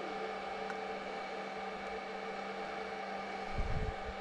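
A steady mechanical hum runs throughout, with a light tick about a second in and a few soft bumps of handling near the end.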